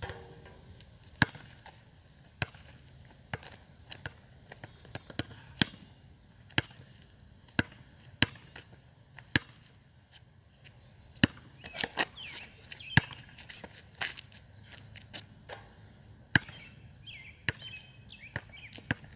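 Basketball bouncing on an asphalt court during dribbling drills. Sharp single bounces come about once a second, unevenly spaced.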